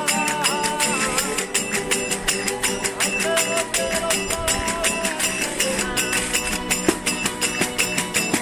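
Verdiales folk band playing: small brass hand cymbals struck to a fast, steady beat over strummed guitars, with a gliding melody line that sounds like singing.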